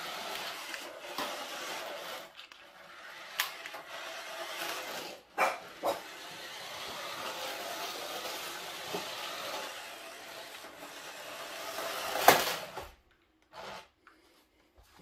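Small battery-powered electric motor and gears of a toy RC car whirring as it drives over a laminate wood floor, with a few sharp knocks as it bumps into things, the loudest about twelve seconds in; then the motor noise stops and it goes quiet.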